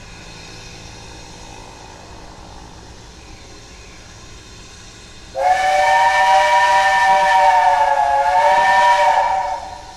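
Steam locomotive chime whistle sounding once for about four seconds, starting about halfway in, several notes held together as a chord and sagging slightly in pitch before it dies away. Before it there is only a faint steady hiss.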